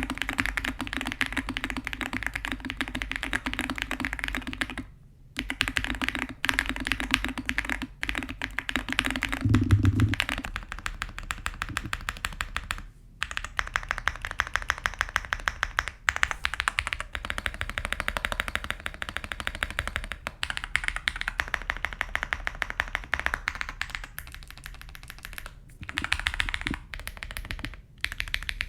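Fast continuous typing on a Pixel Space Capsule 65 custom mechanical keyboard with lubed Zaku II tactile switches in a polycarbonate plate: a dense run of keystroke clacks with brief pauses, and one heavier, deeper thump about ten seconds in.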